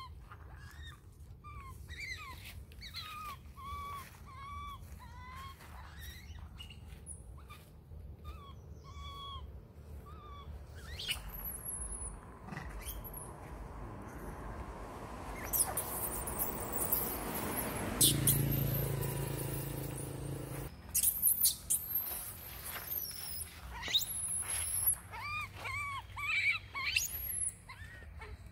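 Baby monkey crying with a run of short, arching coo calls, several a second, then high, shrill screeches near the end; the calls are the distress cries of an infant separated from its mother. In the middle comes a stretch of noise with a brief low hum.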